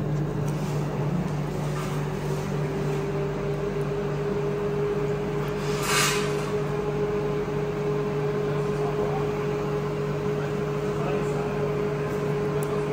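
Steady low hum of running machinery, with a fainter higher tone that creeps up in pitch over the first few seconds and then holds steady. A brief hiss comes about six seconds in.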